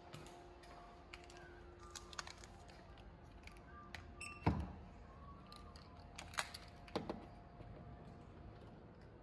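Key card held to an electronic door-lock reader: a short electronic beep about halfway through, then a heavy thunk as the lock releases. A couple of sharp clicks follow as the sliding door is worked.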